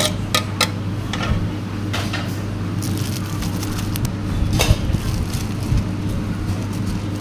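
Occasional clinks of a utensil against a dish while food is mixed, several close together at the start and then scattered, over a steady low hum.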